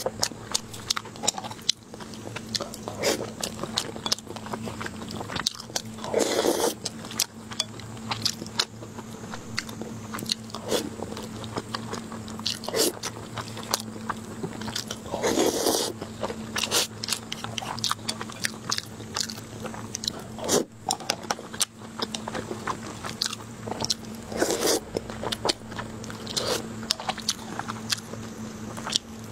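Mouth sounds of someone eating braised pork belly with rice and glass noodles: steady chewing with many small wet clicks and smacks, and a few louder ones spaced through the stretch.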